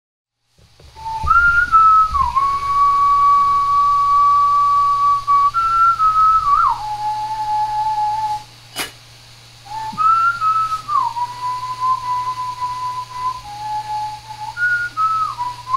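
A person whistling a slow tune in held notes, stepping up and down between higher and lower pitches. A sharp click comes about nine seconds in, over a faint steady low hum.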